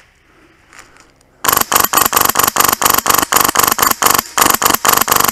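Polarstar Fusion Engine HPA airsoft M4 firing a fast string of shots, several a second, starting about a second and a half in and running for about four and a half seconds.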